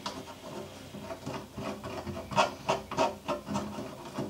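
A hand tool scraping and rubbing against the inside of a carbon fibre hull in short repeated strokes, which grow louder and come about three a second in the second half, as epoxy is worked in around the jet pump housing.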